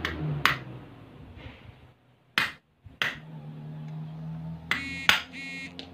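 A screwdriver prying at the bushing in an electric fan motor's metal end housing: a handful of sharp metallic clicks, with a short grating scrape a little before the end.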